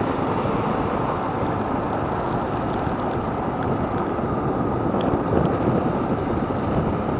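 Yamaha R15 V3 motorcycle under way: a steady rush of wind and road noise with the engine running underneath. A short click about five seconds in.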